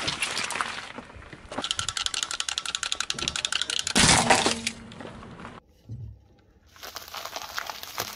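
Car tyre rolling over and crushing brittle objects: a run of fast crackling and crunching, a louder crunch about four seconds in, a brief lull, then more crackling near the end.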